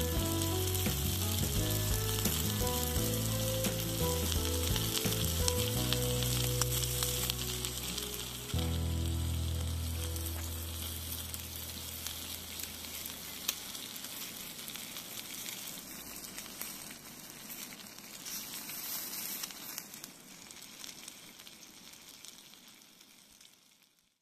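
Meat sizzling and frying in a square skillet on a gas camp stove, a steady spitting hiss. Low background music plays over the first half, then fades out, and the sizzle fades away near the end.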